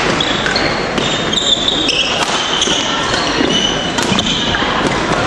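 Badminton rally: shoes squeaking in short high chirps on the wooden court, with sharp racket strikes on the shuttlecock, over a murmur of spectators' voices.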